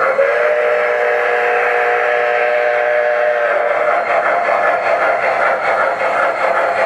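Proto-Sound 2 sound system of an MTH Premier Virginian Triplex O-gauge model steam locomotive blowing its steam whistle: one chord held for about three seconds, over the steady running sound of the train.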